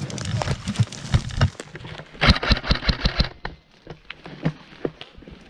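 Sharp cracks and snaps. About two seconds in comes a fast, even run of roughly nine cracks lasting about a second, followed by scattered fainter clicks.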